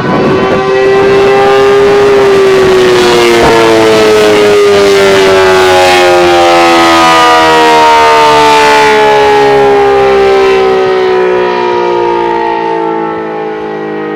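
ACA Allertor 125 outdoor warning siren sounding the attack signal: a loud wail that rises a little in pitch, then slides slowly downward, growing quieter over the last few seconds.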